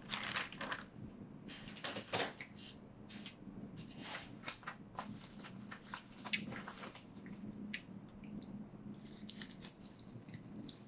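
Crunchy bites and chewing of crisp roasted seaweed (nori), with short crackles and the crinkle of its plastic pack as it is handled, picked up close by the microphone.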